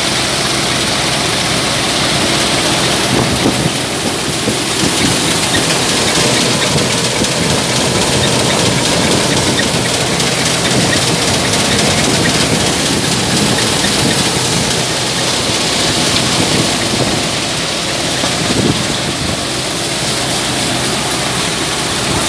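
Multi-crop thresher running steadily: a loud, even mechanical din that does not let up.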